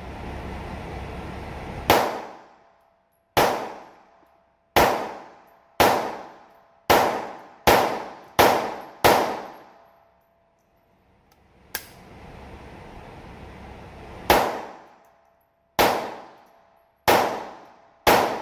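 CZ P10 C pistol in .380 ACP firing reloaded ammunition: eight shots in quick succession, about one a second, then a pause of about five seconds with one faint click, then four more shots. Each shot echoes briefly in the indoor range.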